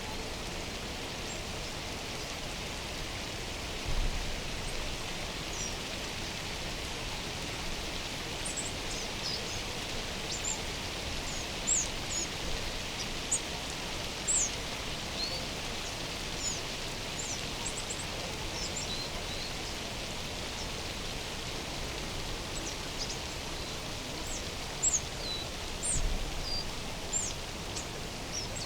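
Small birds giving short, high chirps every second or two over a steady rushing hiss of mountain ambience. There are a couple of brief low bumps, about four seconds in and near the end.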